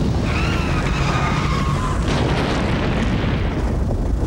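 Cartoon earthquake sound effect: a loud, continuous low rumble of shaking ground. A wavering high tone rides over it for the first two seconds.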